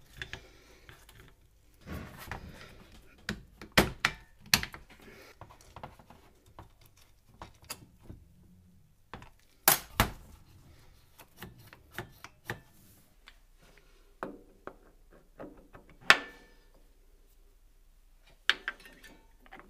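Scattered metallic clicks and knocks as motorcycle drum-brake shoes are fitted onto the brake backing plate and the parts are handled on a metal workbench; three louder knocks stand out.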